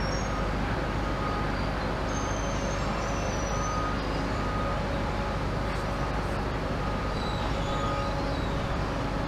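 Steady, even rumble of distant engines and vehicles at a demolition site, with no single sound standing out and a few faint high chirps.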